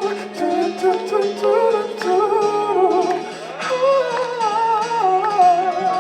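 A pop song played live, with a wordless vocal melody line gliding over sustained backing chords.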